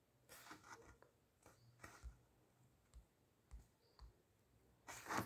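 Near silence in a small room, broken by a few faint taps and clicks, the loudest near the end.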